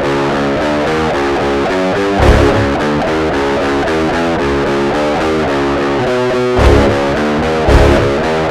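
Heavy metal music: a distorted electric guitar riff of quick picked notes, with heavy low hits from the drums and bass about two seconds in and twice near the end.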